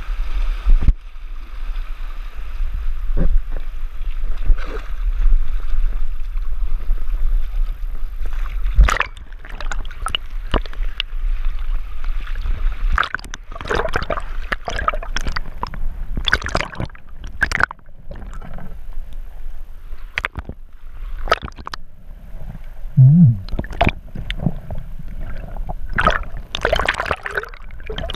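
Water sloshing and gurgling, muffled as through a GoPro's waterproof housing at the surface and underwater during snorkelling. A steady low rumble runs through the first several seconds, followed by irregular splashes and knocks.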